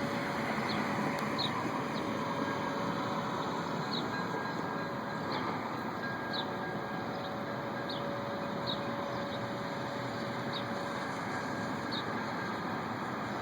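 Steady distant drone with faint held tones running through it, the unexplained noise from the sky that went on for hours. Short high chirps repeat about once a second over it.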